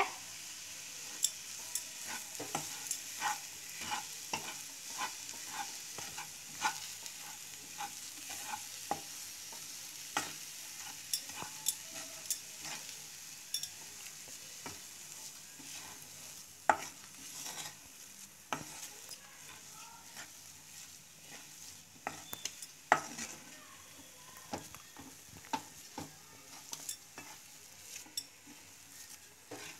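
Wooden spatula stirring and mixing a soft mashed potato and almond cutlet mixture in a nonstick frying pan, with irregular taps and scrapes against the pan over a faint steady sizzle.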